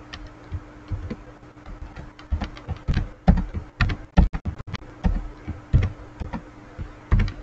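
Computer keyboard keystrokes clicking irregularly as a line of code is copied and pasted over and over, with a quick run of several keystrokes about four seconds in. A faint steady hum runs underneath.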